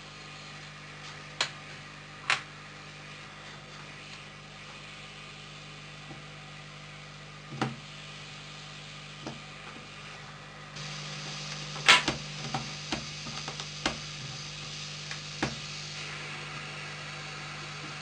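Scattered sharp clicks and taps of small repair tools and phone parts being handled, over a steady low hum that gets louder about eleven seconds in.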